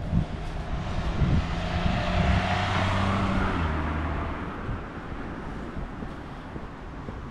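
A motor vehicle driving past: engine hum and tyre noise that swell, peak about two to three seconds in, and fade away.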